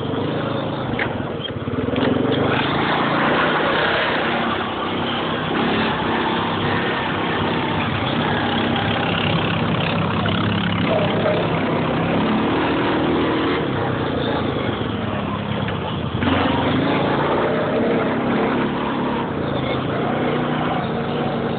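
Honda ATV engine running as the quad drives across a rough pasture, its note dropping briefly about two seconds in and again later before it pulls on.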